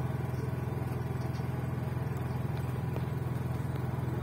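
Steady low mechanical hum with a fast, even pulse and no breaks.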